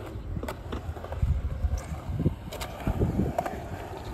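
Skateboard wheels rolling on a concrete bowl: a low rumble that swells and eases as the board carves through the transitions, with a few short sharp clicks.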